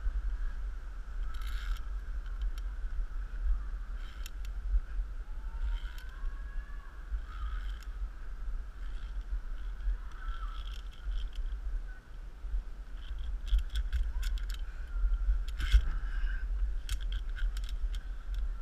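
Steady wind rumble on the microphone as a climber moves along a treetop ropes course, with scattered metallic clinks and scrapes of safety clips and cable, bunched together near the end. A steady high hum runs underneath.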